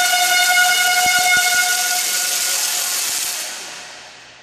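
A long, loud horn blast with a strong hiss, held on one pitch and then fading out after about three and a half seconds. A couple of dull knocks sound about a second in.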